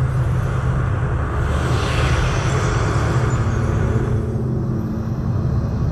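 Wind sound effect from the show's soundtrack over outdoor loudspeakers: a deep rumble under rushing wind that swells into a gust about two seconds in and dies back, with a low held tone coming in near the end.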